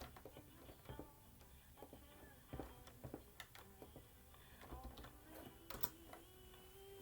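Faint background music with scattered, irregular sharp clicks.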